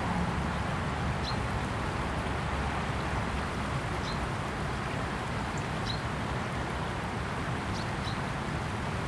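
Shallow river water rushing steadily past reed banks, with a few short, high bird chirps scattered through.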